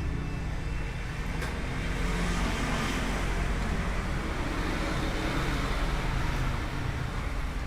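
Steady low rumble of road traffic with a hum underneath, and one short click about a second and a half in.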